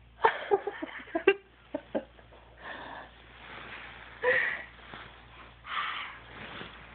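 Yawning: a few short squeaky sounds and clicks in the first two seconds, then three long breathy yawns, the loudest about four seconds in.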